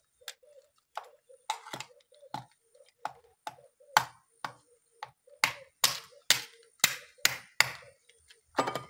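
Small claw hammer cracking the shells of giant land snails on a plastic sheet over concrete: a run of sharp knocks and crunches, about seventeen in all, coming faster, about two a second, in the second half.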